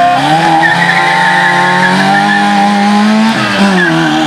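Autobianchi A112's small four-cylinder engine revving hard under acceleration, its note climbing steadily, then dropping sharply about three seconds in and climbing again, with the tyres squealing.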